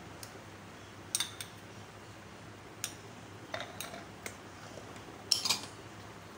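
Scattered light clinks of a metal spoon against glassware and dishes, about seven short sharp strikes, the loudest a quick pair near the end.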